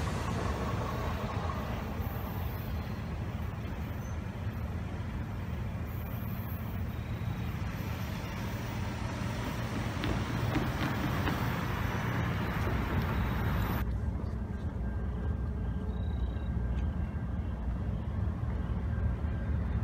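Cars idling and then driving across the railroad crossing as the gates rise, over a steady low rumble. A higher hiss cuts off suddenly about fourteen seconds in.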